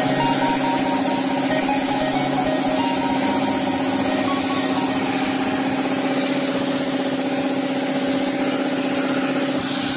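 Compressed-air paint spray gun hissing steadily as it sprays a car body panel, over a steady low hum.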